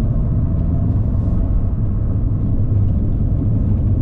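Jeep Renegade Diesel on the move: a steady low driving rumble of engine and road noise.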